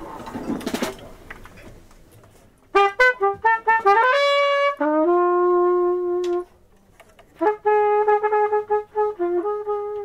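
Monette cornet playing a phrase of quick, detached notes that step upward into longer held tones, then pausing and starting another phrase of short and held notes. A second of room murmur comes before the first note.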